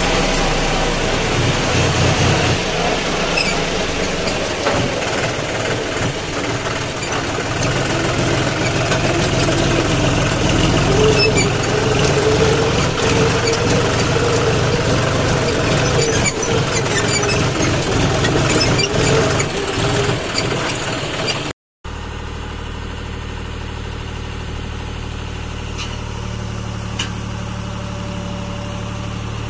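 A John Deere tractor's diesel engine running as the tractor drives along, with loose rattles over it. After a sudden break about two-thirds of the way through, a tractor diesel runs steadier and quieter while its tipping trailer dumps a load of mud.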